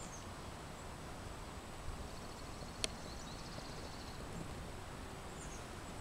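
Outdoor ambience: a steady low rumble of background noise, with a faint, rapid high-pitched trill from about two seconds in to past the middle, and one sharp click near the middle.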